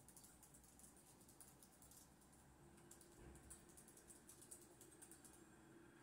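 Faint typing on a computer keyboard: light, irregular keystrokes.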